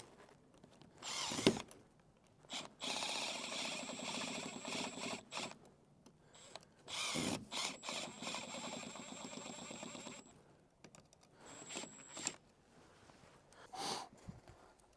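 SDS hammer drill boring a fixing hole for a floodlight bracket, running in two steady runs of about three seconds each with a short pause between, and a few knocks before and after.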